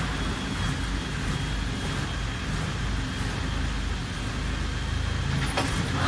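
Engine of a crawler-mounted pile driver running steadily as the machine travels on its tracks, with a short click near the end.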